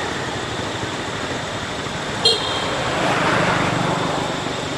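Steady outdoor background noise, with one short, sharp, high-pitched toot about two seconds in and a swell of low rumbling, traffic-like noise just after it.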